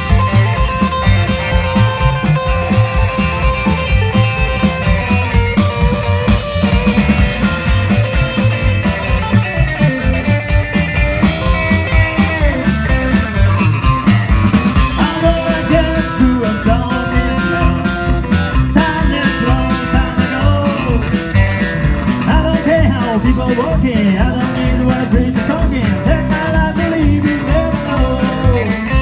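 Live rockabilly band playing: electric guitar over upright double bass and a drum kit, with a fast, steady beat.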